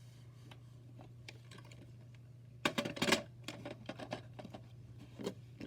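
Handling noise: a cluster of clicks and knocks about two and a half seconds in, then a few scattered lighter clicks, over a steady low hum.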